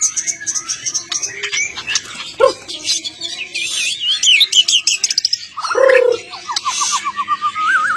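Songbirds chirping and twittering in a dense, busy mix of fast calls, a birdsong master recording for training caged songbirds, with a warbled trill that climbs in pitch over the last two seconds.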